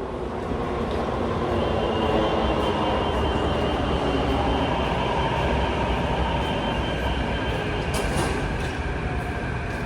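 Kawasaki-CRRC Qingdao Sifang T251 metro train arriving into an underground station: a steady rumble and rush of wheels and air that swells over the first couple of seconds. A steady high whine joins in about a second and a half in, and a few short clicks come near the end.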